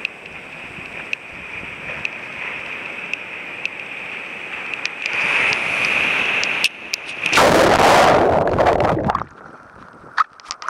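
Sea surf and rushing water heard at the water's surface, swelling into a loud wash of breaking whitewater for about two seconds, which cuts off abruptly and leaves lighter splashing.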